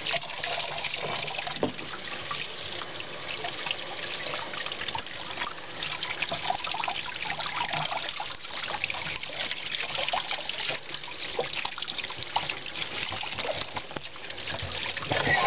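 Faucet running a steady stream of water into a utility sink and over a wet cat, with small irregular splashes as hands rinse her fur.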